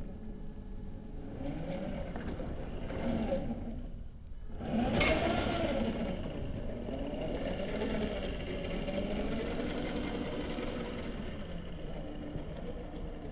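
Electric motor and drivetrain whine of a Traxxas TRX-4 1/10-scale RC crawler, pitch wavering up and down with the throttle as its tyres dig through loose dirt, slowed and lowered in pitch with the slow-motion footage. It drops away briefly about four seconds in, then comes back louder.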